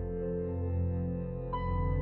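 Slow ambient background music of sustained, held notes, with a bell-like tone struck about one and a half seconds in.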